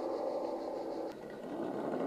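Scale RC crawler's electric motor and gearbox whining steadily as it drives, with a short click and a brief drop in level about a second in.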